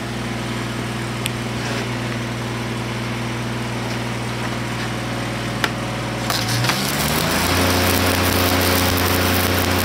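A welding machine running with a steady drone. About six seconds in, a stick-welding arc is struck on a vertical steel plate and burns with a continuous crackling hiss, and the machine's drone changes pitch as the arc takes the load.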